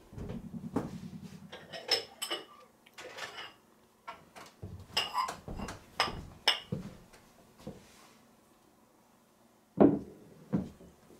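Kitchen clatter of pots, dishes and utensils: an irregular run of knocks and clinks, some ringing like metal, then a pause of about two seconds before a sharp, loud knock near the end.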